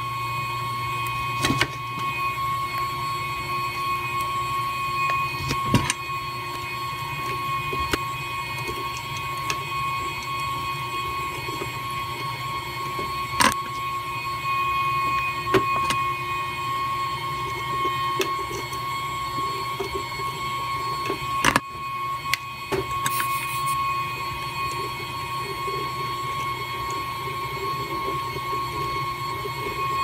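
A small electric motor running steadily with a high, even whine over a low hum. A few sharp light clicks and taps come from the soldering iron and solder wick working over the circuit board.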